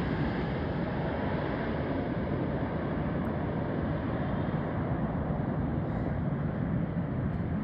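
Steady rumbling noise of a passenger aeroplane landing.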